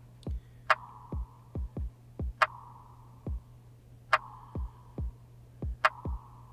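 Trap drum pattern playing on a Roland VerseLab MV-1 groovebox. Deep kicks drop in pitch, and a sharp snare or clap hit with a ringing tail lands about every 1.7 seconds.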